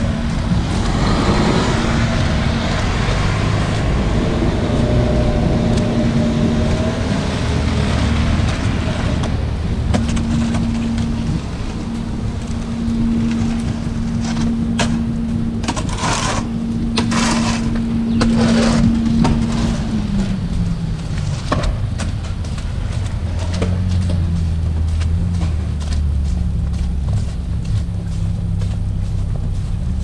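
Low steady rumble of city traffic and wind, with an engine hum that drops in pitch about two-thirds of the way through. In the middle, a snow shovel scrapes across the sidewalk in three or four short strokes.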